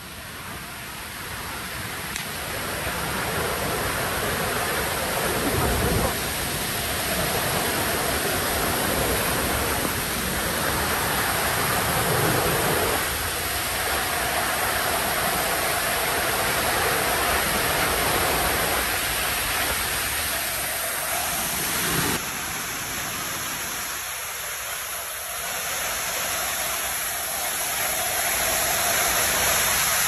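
Bhagsunag waterfall and its stream in spate after a cloudburst: a steady rushing of floodwater over rocks, growing louder over the first few seconds and then holding.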